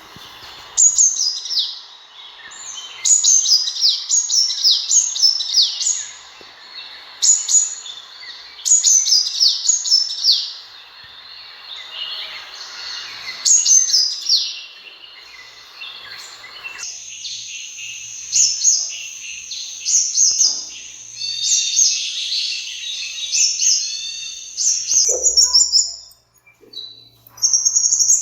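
Sunbird calling: bursts of short, high, sharp chirps that sweep downward, repeated in quick phrases. About 17 seconds in, a steady background noise cuts off abruptly, and the calls turn into a denser, higher twittering.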